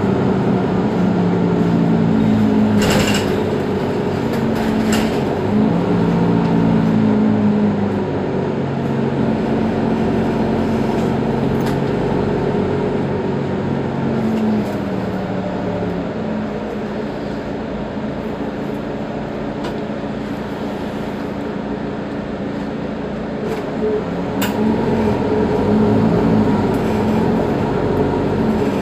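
Mercedes-Benz Citaro G articulated bus's diesel engine heard from on board as the bus drives: the engine note rises and steps down several times as the automatic gearbox changes up, runs steadily for a while, then climbs again near the end. A few sharp clicks or knocks at about three, five and twenty-four seconds in.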